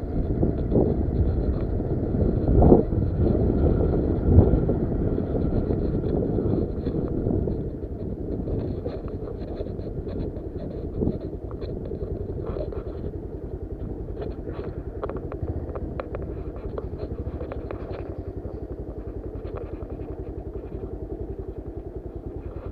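Motorcycle engine running while the bike rides a rough dirt track, with two louder thumps a few seconds in. The engine sound drops to a lower level after about seven seconds.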